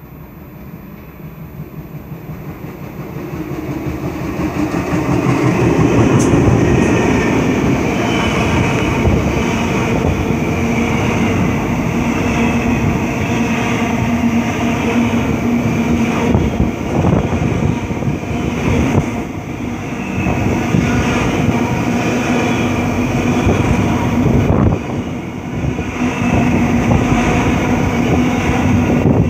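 Container freight train passing close by. Aurizon diesel locomotive 2813 grows louder as it approaches and goes by about five to six seconds in. The container wagons then roll past steadily, with the wheels clicking over the rail joints and a steady low hum.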